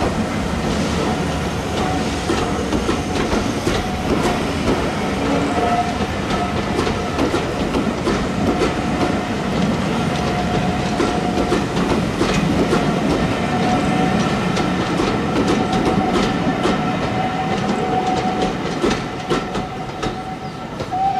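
Railway passenger coaches rolling past close by, their wheels clattering over the rail joints, with a thin steady high squeal coming and going. The sound drops a little near the end as the last coach draws away.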